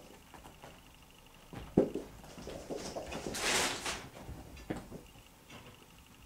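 Ragdoll kittens scampering and wrestling on a fabric sofa: scattered soft thumps and scuffles, the loudest a sharp knock just before two seconds in, with a short burst of scratchy noise a little past three seconds.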